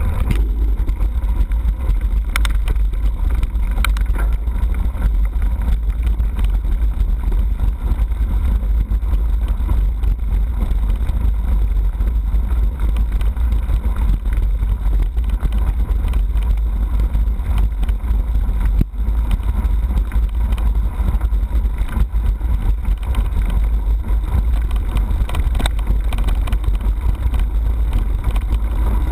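Wind buffeting a handlebar-mounted action camera's microphone over the steady rumble of mountain bike tyres rolling on a gravel dirt track, with a few light knocks from the bike.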